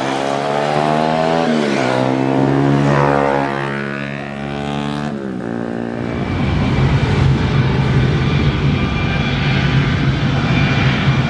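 Jet engines of an Airbus A330 at takeoff power as it lifts off and climbs away: a whine of several tones that shifts in pitch twice. About six seconds in this gives way to a steadier, rougher jet engine rumble from a Boeing 737 taxiing.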